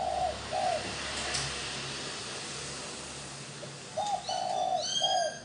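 Spotted dove cooing. A phrase of low, hollow coos runs over the start, then a three-note coo phrase comes about four seconds in. Over the second phrase there is a set of thin, higher rising notes.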